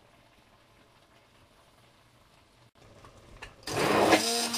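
Handheld immersion (stick) blender switching on about three and a half seconds in and running with a steady whir as it purees raw onions and garlic in a plastic jug, after a near-quiet start.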